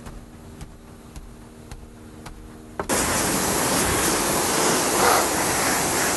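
A low hum with soft, regular ticks about two a second, cut off about three seconds in by a loud, steady rushing noise.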